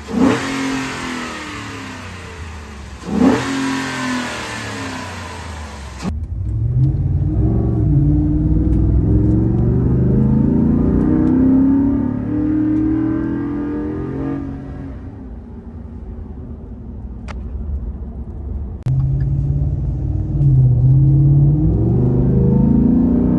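Ford F-150's 6.2L V8 breathing through an S&B cold air intake: two sharp throttle blips, then the engine pulling under acceleration with its pitch climbing in steps, easing off, and climbing again near the end.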